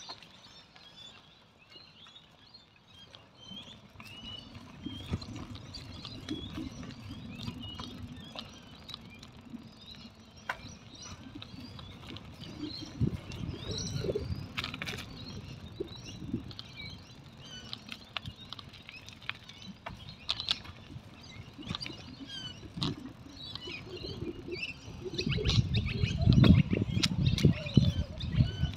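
Many small birds chirping in the trees, over a gusty low rumble of wind on the microphone from riding, which grows loudest near the end.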